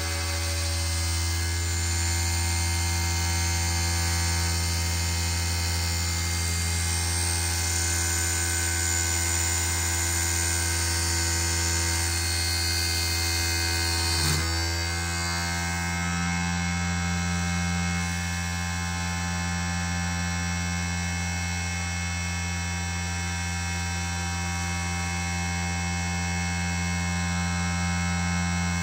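CNC1610 desktop machine converted to an NC lathe, running a machining test: a steady electric motor hum with several high whining tones over it. About halfway through there is a short click and the tones shift.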